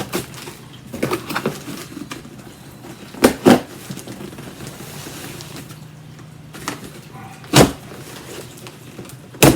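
Cardboard box being opened by hand, its tough packing tape being pulled and torn, with rustling and several sharp cardboard knocks and crackles, two close together around the middle and one loud one near the end.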